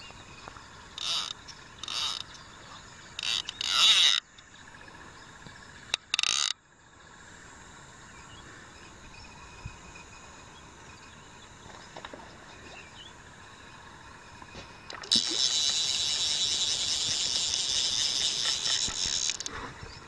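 Fishing reel clicking: several short bursts in the first seven seconds, then a steady unbroken run of about four seconds near the end.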